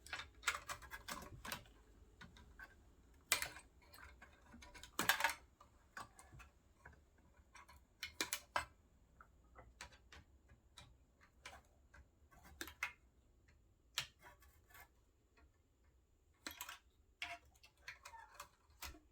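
Irregular small clicks and taps of hand tools and small electronic parts being handled while a vintage office intercom is taken apart, with a few sharper clicks about 3, 5 and 8 seconds in and again near the end.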